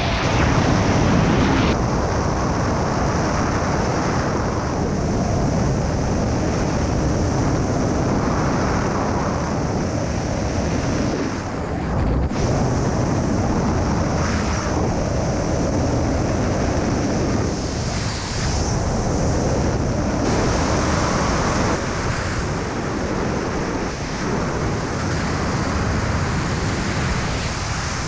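Loud, steady rush of freefall air over a helmet-mounted camera's microphone during wingsuit flight, swelling and easing at times.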